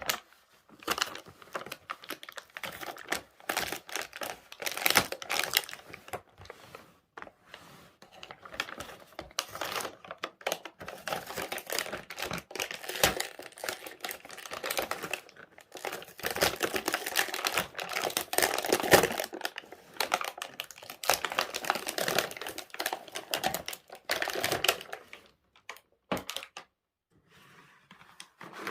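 Plastic toy packaging crinkling, with small plastic toy pieces clicking and tapping as they are handled and unpacked: a dense run of crinkles and light clicks with a few brief pauses.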